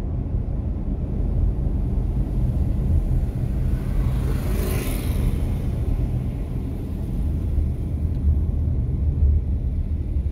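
Steady low rumble of a car's engine and tyres heard from inside the cabin while driving slowly, with a brief hiss that swells and fades about four to five seconds in.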